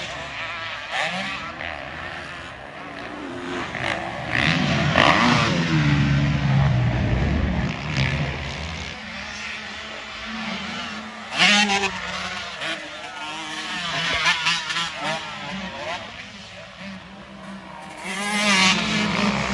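Motocross dirt bike engines revving, their pitch rising and falling as they accelerate and ease off around the track, with louder surges near the middle and near the end.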